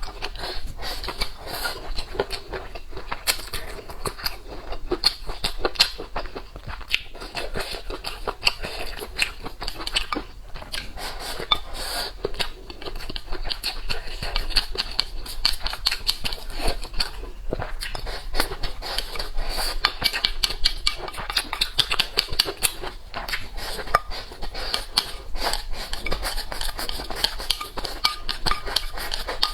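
Eating sounds: utensils clinking and scraping against dishes, a dense run of small clicks.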